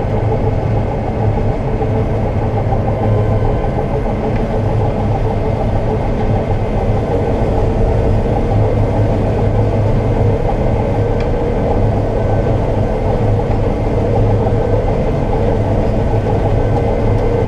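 Combine harvester running steadily while harvesting soybeans: a constant engine and machinery drone with a strong low hum.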